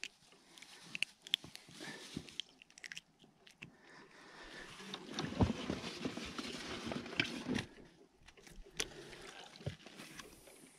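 Rustling and scattered small clicks of clothing and fishing gear being handled in an inflatable boat, with a denser stretch of rustling in the middle.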